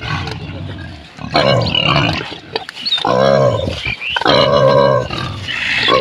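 Pigs grunting: a run of about five loud, rough calls, each lasting around a second.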